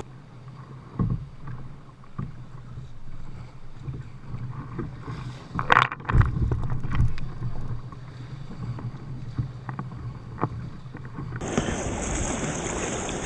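Sit-on-top kayak being paddled out through breaking surf: water sloshing and slapping against the hull and paddle, with a loud splash about six seconds in as a wave breaks over the bow. Near the end it turns to a steady rush of wind and water on the microphone.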